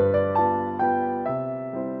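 Gentle, relaxing piano music: single notes struck one after another, about every half second, each left to ring and fade.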